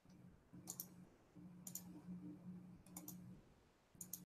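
Near silence with four faint, sharp clicks about a second apart over a faint low hum; the sound cuts off completely near the end.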